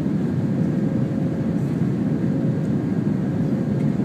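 Steady jet airliner cabin noise in flight: engine and airflow rumble heard from a window seat over the wing, with a faint steady hum.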